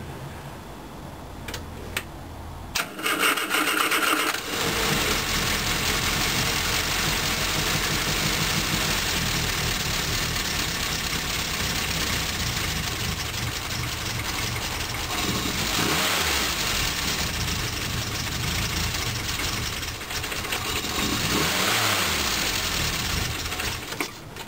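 A Mini's 1400cc four-cylinder A-series engine is cranked and catches about three seconds in, then keeps running, with the revs rising twice in the second half. It is being started after seven years laid up, on stale fuel.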